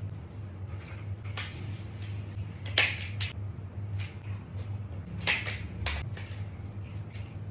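Short clicks and rustles of things being handled, in two brief clusters about three seconds in and about five and a half seconds in, over a low steady hum.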